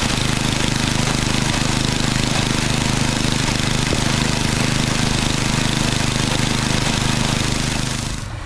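10 hp Tecumseh snowblower engine running steadily at high governed RPM, with its carburetor's high-speed mixture screw set correctly: smooth, with no hunting or stuttering. The sound drops away near the end.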